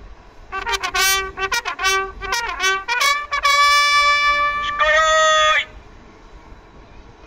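Two valveless bugles sounding a bugle call together: a run of short, quick notes, then two long held notes, stopping a little past halfway through.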